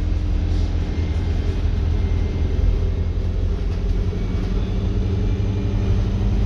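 StreetLite single-deck bus heard from inside the saloon while driven hard at motorway speed: a steady engine drone over heavy, even road rumble.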